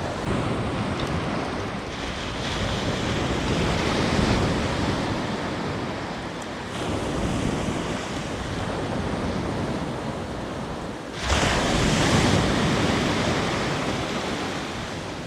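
Sea surf breaking on a sandy beach, swelling and ebbing every few seconds, with a sudden louder wave crashing about 11 seconds in. Wind blows on the microphone.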